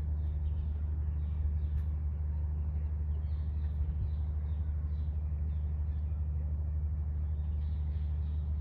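Steady low rumble of distant traffic, with small birds chirping again and again over it.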